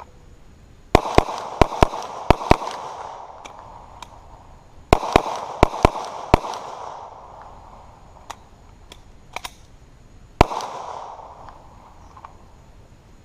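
9mm semi-automatic pistol firing 115-grain steel-cased ammunition in two rapid strings of about six and about five shots, then a single shot near ten seconds in. Each string trails off in echo, and every round fires without a malfunction.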